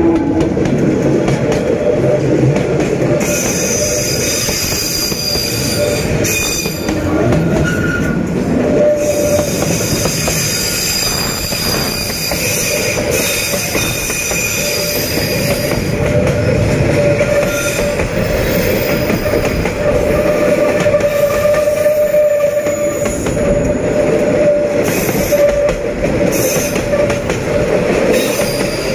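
Container and box wagons of a freight train behind a D19E diesel locomotive rolling past close by on a curve. The wheels squeal steadily against the curved rails, with a high whistling squeal strongest in the first half, over the rumble and some clatter of wheels on the track.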